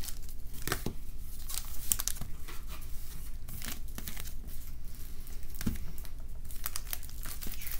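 Foil wrapper of a Pokémon trading card booster pack being torn open and crinkled by hand: an irregular run of crackles and rustles.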